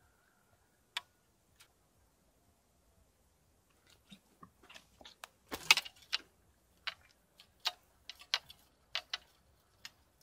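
Spinning reel and rod being handled: a single sharp click about a second in, then from about four seconds in a quick, irregular run of clicks and rattles as the reel is worked.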